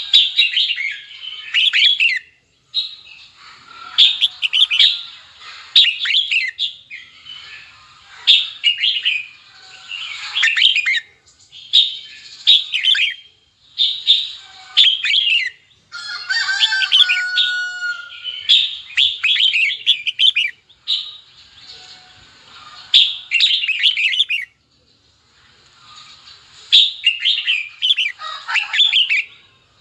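Red-whiskered bulbul singing: short, quick chirping phrases about one a second, with brief pauses in between, and a call with steadier, held notes about halfway through.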